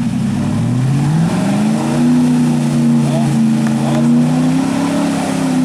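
Lifted Chevrolet Silverado Z71 pickup's engine revving up about a second in and held at high revs, the truck churning through water and mud as it drives out of a pond.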